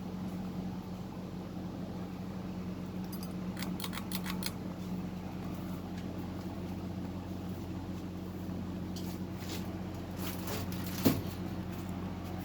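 1998 Windmere 52-inch ceiling fan running, its motor giving a steady hum. Two short runs of light clicks, and a single sharp knock near the end.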